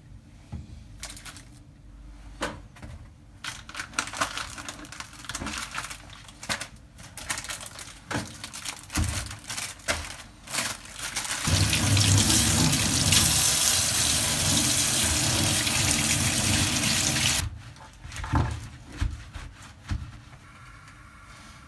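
Kitchen sink tap running steadily for about six seconds, then shut off abruptly. Before it come about ten seconds of scattered clicks, knocks and rustling from kitchen items being handled, and a few knocks follow it.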